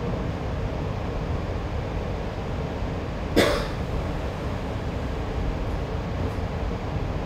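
Kawasaki-built light rail car running, heard from on board as a steady low rumble. One short, sharp burst cuts through about three and a half seconds in.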